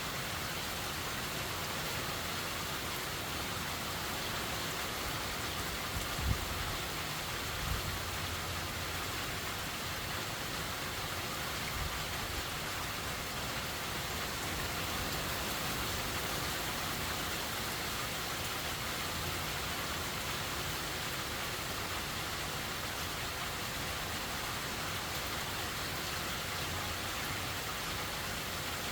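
Steady heavy rain falling during a hurricane, an even wash of noise, with two brief low thuds about six and eight seconds in.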